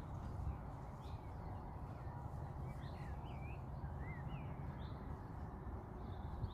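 Small birds calling: a few short, quick chirps with rising and falling pitch, over a steady low outdoor rumble.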